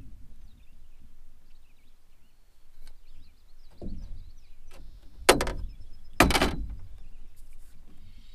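Two loud, hollow knocks on an aluminum boat hull, about a second apart, with a lighter knock shortly before: the landing net being set down in the boat.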